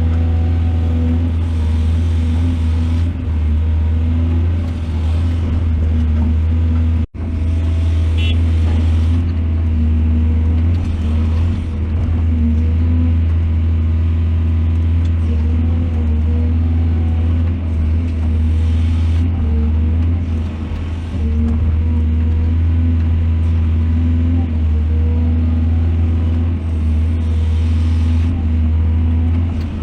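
Large excavator engine running steadily with a deep, even drone, dropping out for a split second about seven seconds in.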